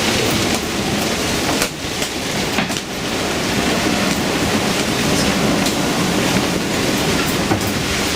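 Storm-force wind rushing across the microphone on an open sailboat deck: a loud, steady rushing noise that dips briefly about two and three seconds in.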